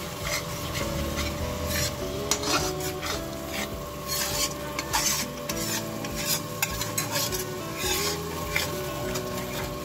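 A spatula scraping round a kadai in repeated strokes, stirring thick onion-tomato masala that sizzles as it fries with freshly added ground spices and a splash of water.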